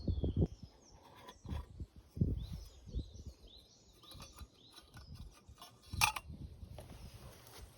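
A small bird calling: a series of short, high chirps that sweep downward, a few at a time. Beneath it are low knocks and rustling, with a sharp click about six seconds in.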